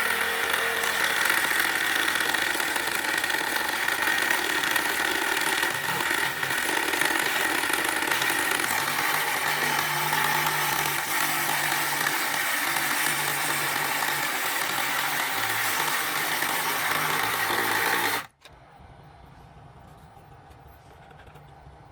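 Homemade scroll saw with a 775 DC motor running steadily, with a high whine and a lower hum that shifts a little. It cuts off abruptly about 18 seconds in, leaving only a faint hiss.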